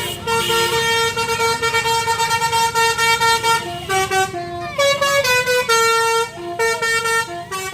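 Bus telolet horn (Basuri multi-tone horn) playing a tune: a run of loud held notes and short notes, stepping between pitches.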